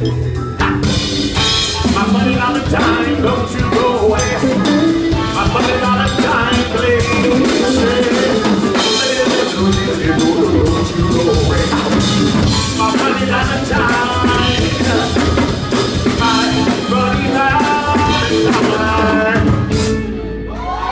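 Live band music: drum kit, upright bass and electric guitar playing together, with busy drumming throughout. Near the end the tune stops on a final crash.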